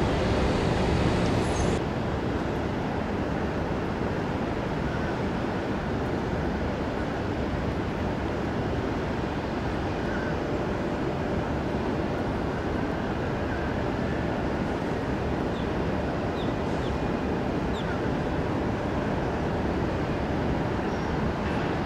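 Aircraft engines heard as a steady, even rumble.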